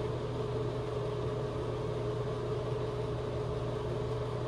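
A steady mechanical hum with a constant low drone and a faint even hiss, unchanging throughout.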